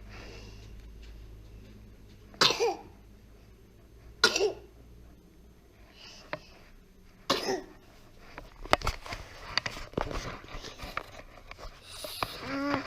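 A person sneezing three times in a row, the sneezes about two and three seconds apart, followed by small clicks and rustles.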